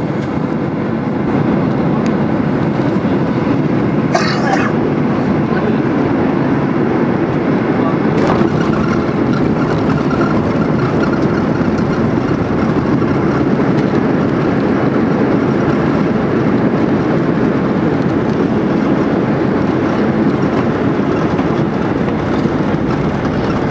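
Airliner cabin noise on landing: the jet engines and rushing air make a steady, loud din as the plane touches down and rolls out along the runway with its spoilers raised. The din grows a little louder about a second and a half in, and two brief rattles come through at about four and eight seconds in.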